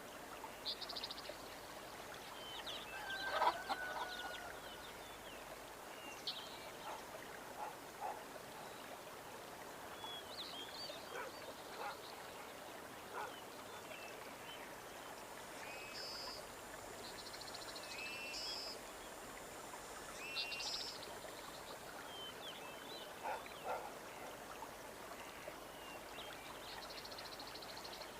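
Nature ambience of birds chirping and calling at scattered intervals, one louder call about three and a half seconds in, over a steady background hiss.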